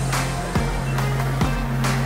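Background music with a held bass line that changes note about every second, and percussion hits.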